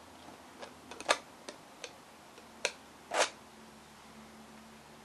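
Palette knife tapping and dabbing thick acrylic paint onto a stretched canvas: about five sharp taps over the first three seconds, then a slightly longer scrape a little past three seconds in.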